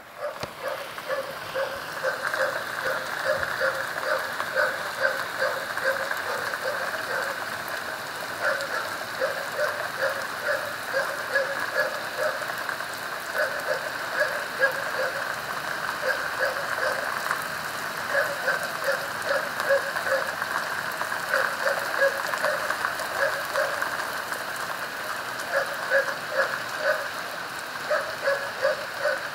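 Steady rain falling on pavement and roofs, with a short sound repeated several times a second in clusters throughout.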